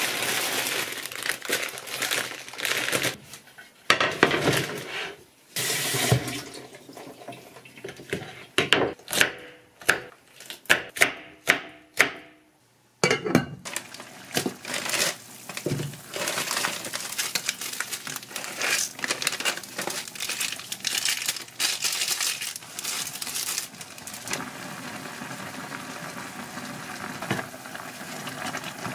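Instant ramen being cooked: a plastic noodle packet crinkles amid sharp clicks and knocks. After a brief break about twelve seconds in, the noodles and seasoning go into a pot of boiling water and are stirred, with a steady bubbling hiss and utensil scrapes.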